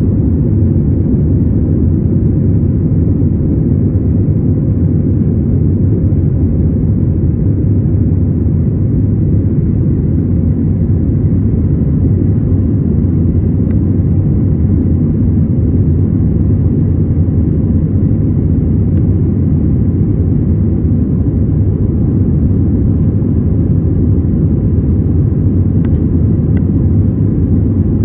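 Jet airliner during takeoff, heard from the passenger cabin: the engines and rushing air make a loud, steady low rumble that holds unchanged throughout.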